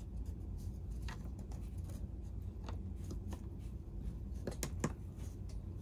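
Light handling sounds from a plastic chainsaw starter housing and its recoil spring being worked into place by hand: a few faint clicks and scrapes over a steady low hum.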